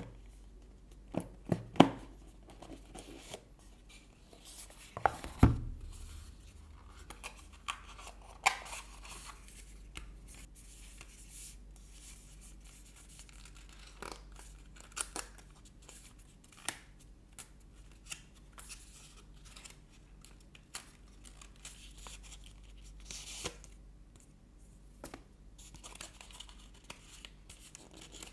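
Hands handling and opening a Samsung Galaxy Buds 2 cardboard box: scattered taps and clicks of card, a heavier thump about five seconds in, and stretches of rustling and tearing as the seal is broken and the box is opened.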